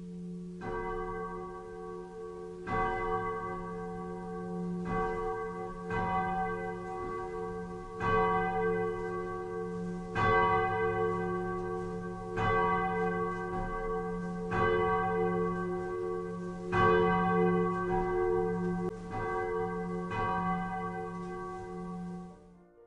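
A single swinging church bell tolling, its clapper striking every one to two seconds, each stroke ringing on over a steady low hum. The ringing cuts off suddenly near the end.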